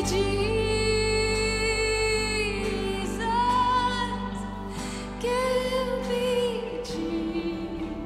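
Live worship song: a woman sings long, held notes into a microphone over a band accompaniment with steady low bass notes.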